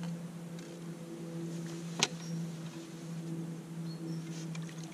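Steady low motor hum, with a single sharp click about two seconds in.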